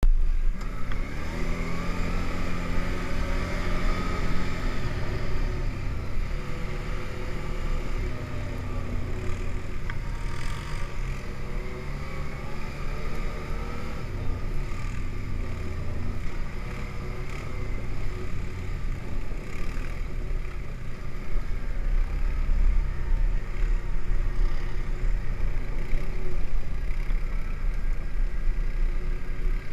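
ATV engine running while riding along a snowy trail, its pitch rising over the first few seconds as it picks up speed, then holding fairly steady with a constant low rumble.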